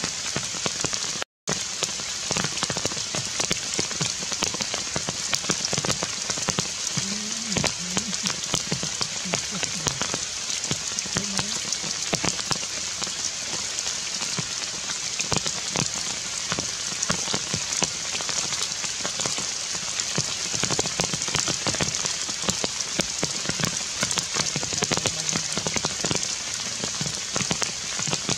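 Heavy rain falling on forest leaves: a steady hiss packed with the patter of individual drops. The sound cuts out completely for a moment about a second in.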